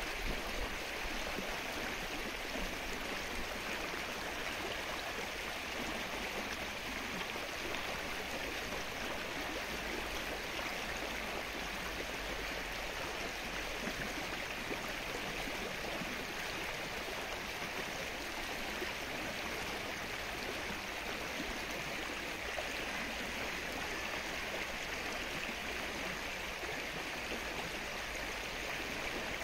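Rain falling steadily on the open water of a flooded lake, an even, unbroken hiss.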